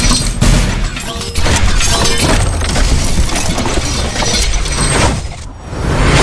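Loud, dense soundtrack music with heavy bass and crashing, shattering hits. It thins out about five and a half seconds in, then swells back up near the end.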